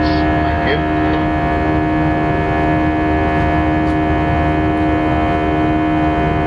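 Airbus A319 cabin noise during the climb after takeoff: the steady drone of the turbofan engines, with several fixed whining tones over a constant rush of air.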